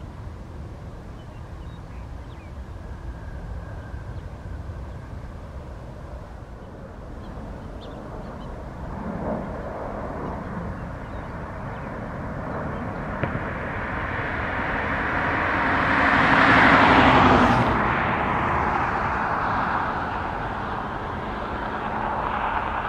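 Jet airliner engines: a distant rumble that builds steadily to a loud peak about three-quarters of the way through, with a brief sweeping whoosh as it passes, then eases off.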